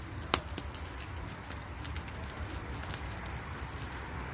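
Bonfire of Christmas-tree branches crackling, with scattered small pops and one loud sharp crack shortly after the start.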